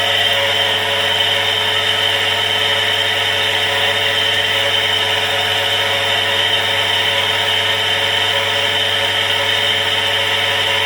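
Household electric water pump running steadily, a noisy constant motor whir and hum.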